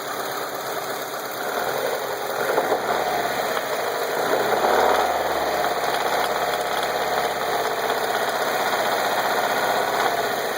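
1991 Mazda Miata's 1.6-litre four-cylinder engine rising from idle about a couple of seconds in and held at raised revs, with a pretty horrible knock and rattle that shows above idle; the owner has no idea of its cause.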